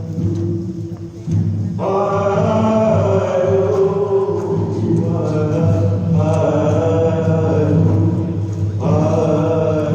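Music with chanted, choir-like vocals over a steady low drone; long held vocal phrases come in about two seconds in, again around five seconds, and once more near the end.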